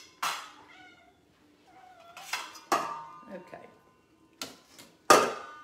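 Metal utensils clanking against a stainless steel stockpot and bowl: a handful of sharp clanks with a brief metallic ring, the loudest about five seconds in.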